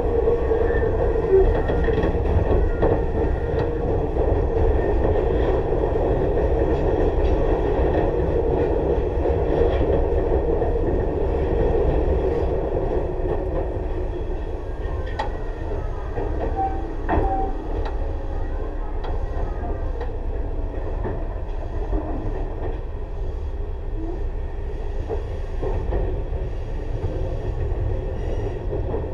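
Tobu 6050 series electric train motor car running on the line: a steady rumble of wheels on rail and traction motor, with a hum that fades about twelve seconds in and a few clicks over rail joints.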